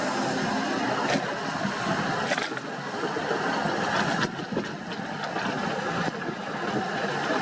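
Sany SY75C excavator's diesel engine running as it works, with a few short knocks or clanks from the machine; the engine eases off a little about four seconds in.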